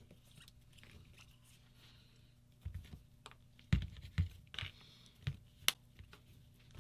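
Light clicks and knocks of metal parts being handled as a paintball marker's grip frame is fitted back onto its body, scattered over the second half. A faint steady hum lies underneath.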